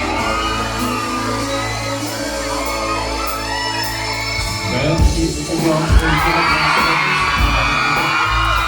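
Instrumental intro of a Thai pop song with an audience cheering and screaming over it; a heavy bass beat comes in about five seconds in.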